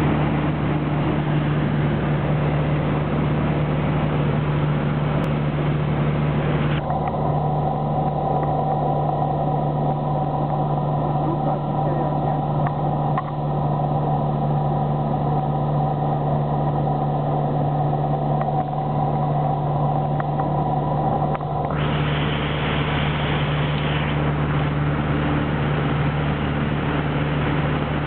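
Cabin drone of a PZL-110 Koliber 150 light aircraft in flight: its four-cylinder Lycoming piston engine and propeller running steadily at cruise, with air noise around the canopy. For a stretch in the middle the hiss is duller and a steady higher whine stands out, then the brighter noise returns.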